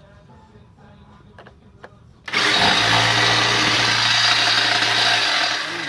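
Power saw started against a car's exhaust pipe, running loud and steady for about three seconds before winding down near the end, its blade not biting into the pipe.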